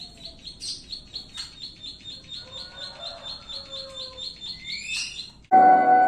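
A small songbird calls in a fast, even series of high 'klik' chirps, about five a second, ending with a rising note. About five and a half seconds in it is cut off by loud music with singing.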